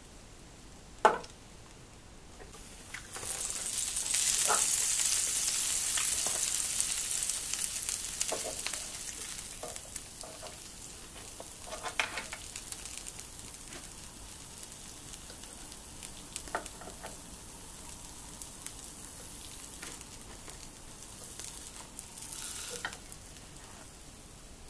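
Cheese and ham sandwiches sizzling between the hot plates of a Melissa sandwich toaster, loudest a few seconds after a sharp knock of the lid closing, then settling to a steady low sizzle. A few more clicks and knocks from the lid and plates come through it, with a brief louder hiss near the end.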